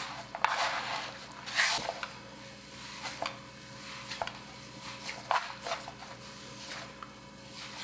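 Hands kneading and pressing crumbly speculaas cookie dough on a wooden cutting board: soft rustling and squeezing, with a few light taps on the board.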